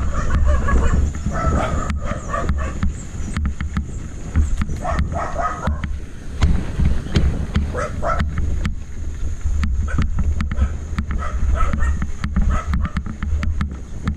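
Wind rumbling over the microphone of a camera on a moving bicycle, with a dog barking in several short runs.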